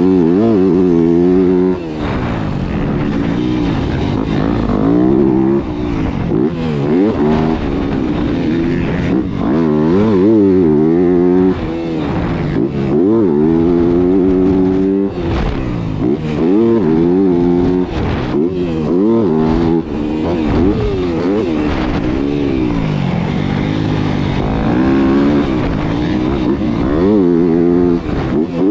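Yamaha motocross bike's engine, heard from on the bike, revving up and easing off again and again as it is ridden hard, its pitch climbing through each burst of throttle and dropping sharply between them.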